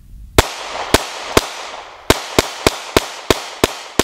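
Sig P365XL 9mm pistol firing about ten shots, each with a sharp report and a short echo. Three come about half a second apart, then after a brief pause a quicker string of about three shots a second.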